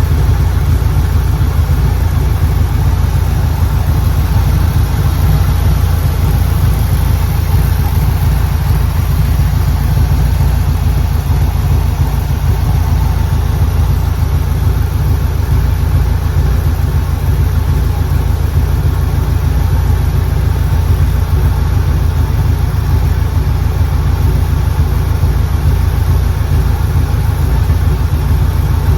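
A 1967 Corvette's freshly tuned Chevrolet small-block 327 V8, the 350 hp version, idling steadily with a deep, even exhaust note and no revving.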